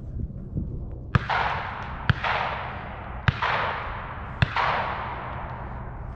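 Four shotgun shots, about a second apart, each followed by a long echo rolling away across open ground.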